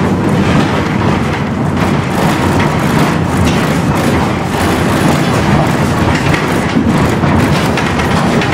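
Tram running, heard from inside the passenger cabin: a steady rumble from the wheels on the rails with irregular clacks and knocks as it rolls through a curve and over track points.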